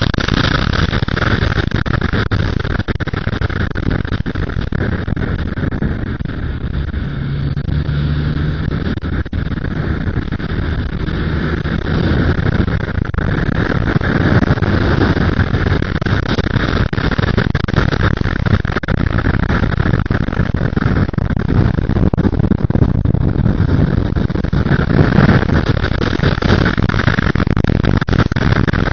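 Yamaha XSR motorcycle ridden at road speed, its engine running under steady wind rush on the bike-mounted camera microphone. A short steady low engine tone stands out about a third of the way in, and the noise grows a little louder as the bike speeds up.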